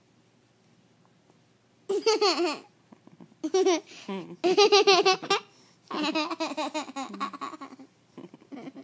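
Toddler laughing in several high-pitched bursts of giggles, starting about two seconds in.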